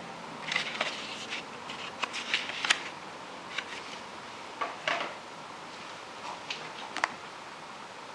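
Paper and card packaging being handled: a scattering of short rustles and light taps, the loudest about a third of the way in and again about a second before the end, over a steady faint hiss.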